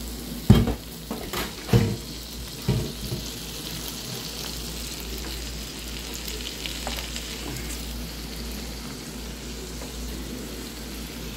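Shredded cabbage, carrot and cilantro frying in butter in a hot pan: a few knocks in the first three seconds as the vegetables go in, then a steady sizzle.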